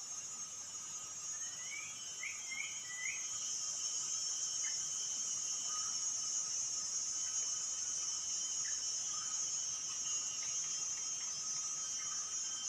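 Steady high-pitched insect drone of crickets or cicadas, with a quick run of four short rising bird chirps about two seconds in and a few scattered single chirps later.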